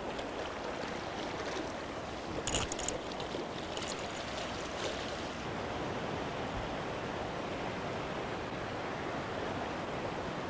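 Fast mountain-stream rapids rushing steadily, with a few short, sharp clicks between about two and a half and five seconds in.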